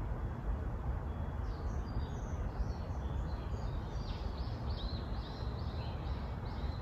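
Black-naped oriole singing a string of short, high, arched notes about twice a second, beginning about two seconds in and growing clearer toward the end, over a steady low rumble.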